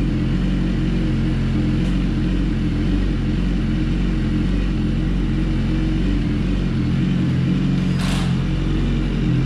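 BMW S1000RR's inline-four engine idling steadily as it warms up after an engine swap. A brief hiss about eight seconds in.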